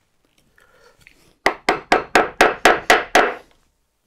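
Mallet driving a wood chisel hard into timber, about eight quick blows at roughly four a second, chopping out waste wood. Each strike is a sharp knock with a short ringing tail.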